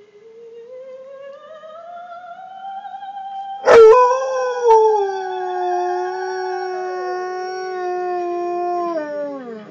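An Alaskan Malamute howls one long, loud howl, starting suddenly about a third of the way in; its pitch sags slowly and then slides steeply down as it ends. Under it a recorded soprano sings opera, a wavering note climbing in pitch.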